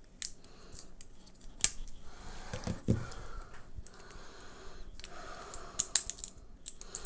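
Small plastic packaging handled by hand: crinkling with scattered sharp clicks and snaps, the loudest of them near the start and about six seconds in.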